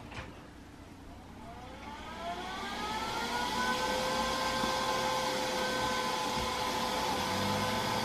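Neato D6 robot vacuum starting up: about a second in its motor spins up with a rising whine that settles into a steady whir. A lower hum joins near the end.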